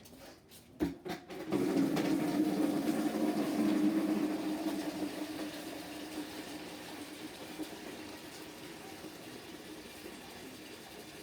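Water running into a washing machine tub to fill it for a rinse. A few clicks come about a second in, then the water starts with a steady rush that is loudest for the first couple of seconds and slowly eases off.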